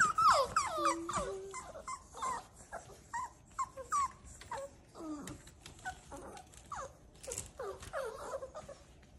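Seven-week-old boxer puppies whimpering in many short, high calls that fall in pitch. The calls come thick in the first second or so, then turn scattered and thin out near the end.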